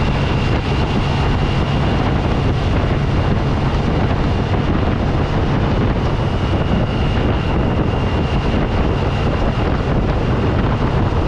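Motorcycle at road speed: a steady engine drone under heavy wind rushing over the microphone, with a faint thin high tone held throughout.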